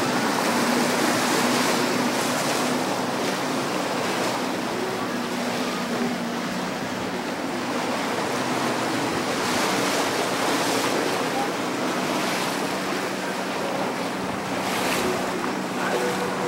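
Boat underway at sea: a steady rush of water and wind, with a faint low hum running beneath it.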